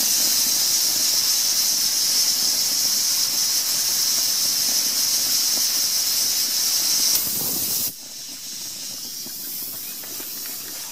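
Steam hissing hard from a homemade boiler's spring-loaded pressure relief valve, an old air-conditioner check valve, venting at about 20 psi because the engine is not using enough steam. The hiss cuts off suddenly about eight seconds in as the valve reseats, leaving a fainter hiss.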